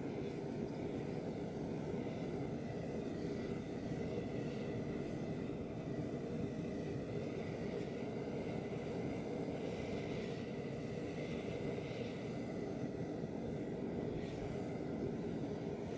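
DIY crucible furnace running for an aluminium melt: a steady roar with a faint high whine over it.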